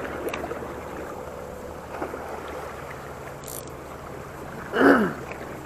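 Steady wind and sea-water noise at the shoreline, with a short, falling voice sound a little before the end.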